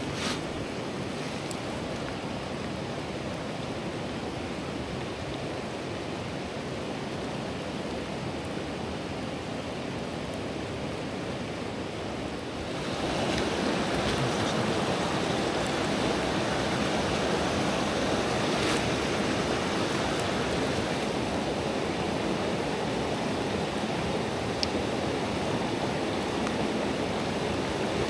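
Mountain stream rushing over rocks: a steady hiss of running water that gets louder and brighter about halfway through.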